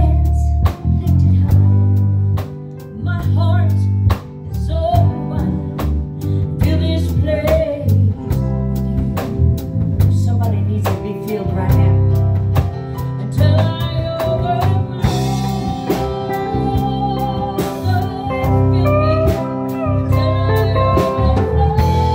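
A song playing: a singing voice over guitar, bass and a drum kit keeping a steady beat.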